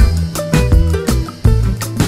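Background music with a steady beat: regular drum hits over a bass line.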